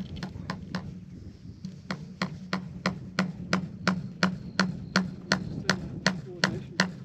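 A hammer striking in a quick, even rhythm of about three blows a second, with a short break after the first few, as fencing is fastened to wooden posts. A steady low hum runs underneath.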